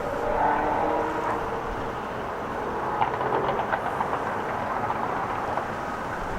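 Steady rumble of a large passing vehicle, with faint whining tones in the first second and a run of light clicks about three seconds in.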